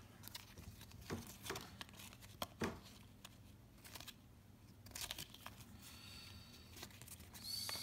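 Faint rustling and soft scattered clicks of a stack of basketball trading cards being handled and flipped through, with a little crinkling of a torn-open pack wrapper.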